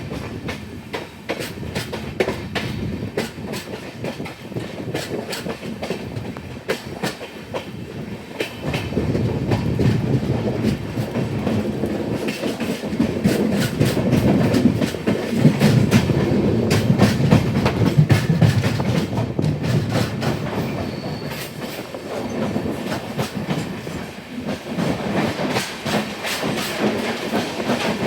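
Train running along the track, its wheels clicking over the rail joints with a steady rumble, louder through the middle stretch.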